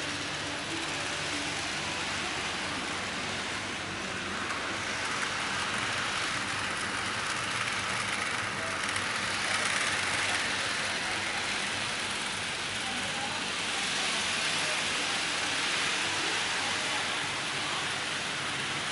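HO-scale model trains running on the layout: a steady whirring rattle of small metal wheels on track and motors, a little louder about ten seconds in.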